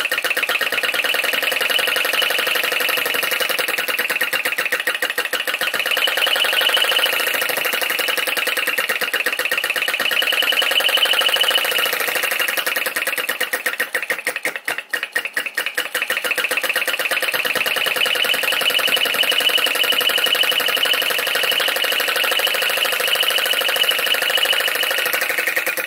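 PM Research #3 flame licker vacuum engine running fast under the load of a homemade gold battery stamper: a loud, rapid, steady clatter. About halfway through it falters and slows for a moment, then picks up speed again, its pace depending on where the spirit lamp flame sits at the cylinder.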